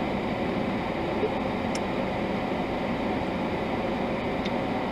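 Steady running hiss and hum of a parked car, heard from inside the cabin, with a couple of faint clicks.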